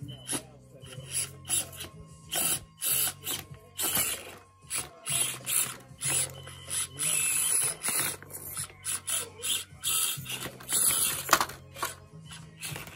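Electric RC rock crawler's motor and gear drivetrain whirring in short stop-start bursts of throttle, with clicks and knocks of its tires and chassis on the rocks.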